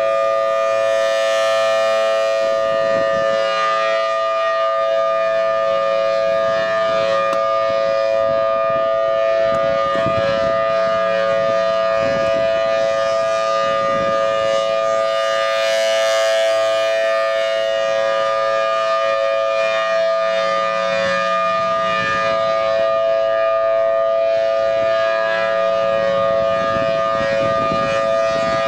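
Federal Signal Thunderbolt 1000T outdoor warning siren sounding during a test, a loud steady chord of tones held at constant pitch throughout.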